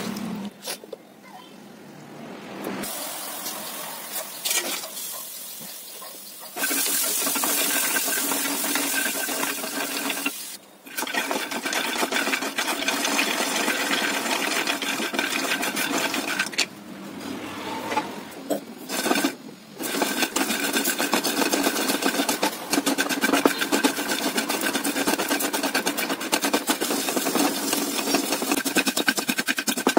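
Raw peanuts rattling and scraping in a non-stick frying pan as they are dry-roasted and stirred with a wooden spatula: a dense, steady run of small clicks. Near the end they are pounded with a wooden masher. The first few seconds are quieter: hands swishing peanuts in a steel bowl of water.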